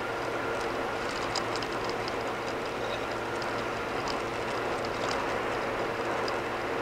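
Steady tyre and road noise of a car cruising at about 55 mph on concrete pavement, heard from inside the cabin, with scattered light ticks.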